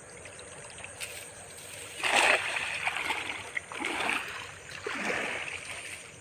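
A cast net hitting the water with a splash about two seconds in, the loudest moment, followed by three more splashes of water about a second apart.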